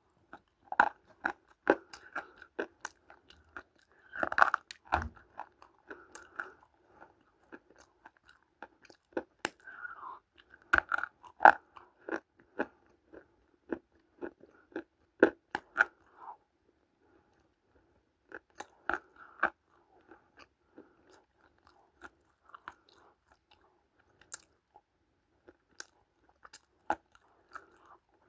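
Dry multani mitti (fuller's earth clay) being bitten and chewed close to the microphone: sharp, irregular crunches and crackles, in denser clusters a few times, with a quieter stretch a little past the middle.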